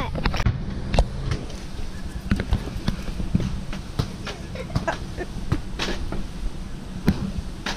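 Irregular knocks and clicks, roughly one or two a second, over a steady low rumble.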